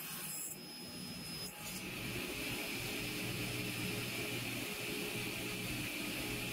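Table saw running with its blade spinning freely, not cutting: a steady whir with a low hum.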